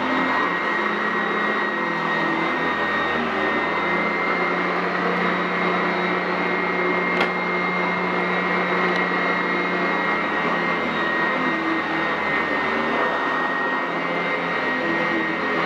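Sanitaire SC899F commercial upright vacuum running steadily over carpet: a constant motor whine over a broad rushing noise. A single brief click is heard about seven seconds in.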